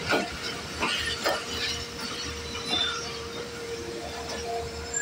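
Passenger train coaches rolling slowly past a platform. The wheels clack over rail joints about three times in the first second and a half, over a steady thin tone.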